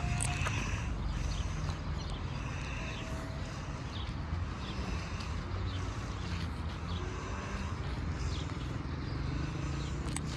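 Steady low rumble of distant road traffic, with a few faint taps and short high chirps over it.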